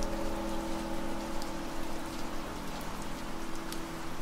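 Steady rain ambience with scattered drop ticks, under a few soft held music notes that thin out.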